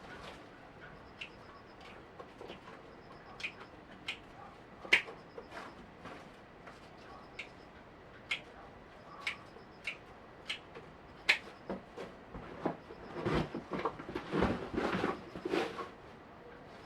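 Water drops tapping on a hard surface at irregular intervals, about one every second or so. Near the end comes a burst of louder, denser rustling and knocking.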